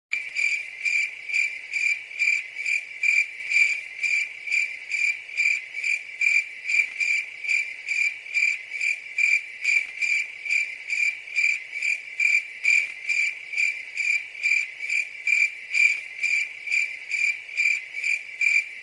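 Cricket chirping: an even, steady chirp repeated about three times a second, starting and stopping abruptly.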